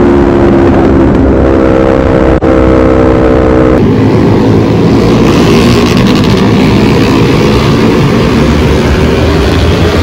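Sport motorcycle engine running at high revs under way, a steady engine note that steps up in pitch about a second in, with a brief dropout in the middle. Almost four seconds in the sound changes abruptly to several motorcycles riding together, a denser mix of engines and rushing noise.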